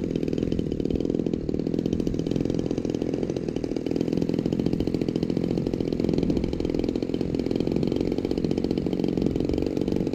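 Stinger 26cc two-stroke gasoline engine of a large RC model biplane idling steadily on the ground, with an even, fast firing rhythm.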